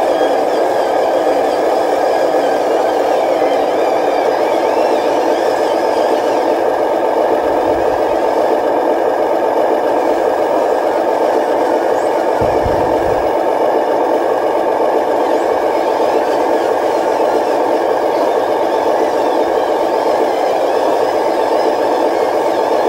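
Remote-control dump truck driving under load, a steady engine-like drone with some rattle, and two brief low thumps near the middle.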